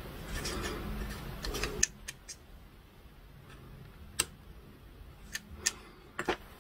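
Small sharp clicks of fine metal tweezers and fingertips against small hard-plastic parts of a 1/12 scale model kit, with a light rustle of handling during the first two seconds. The clicks come singly and in pairs, the loudest about two seconds in.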